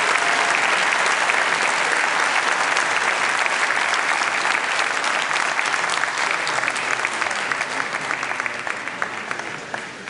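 A large audience applauding. The clapping is dense at first and thins out toward the end, so that single claps stand out as it fades.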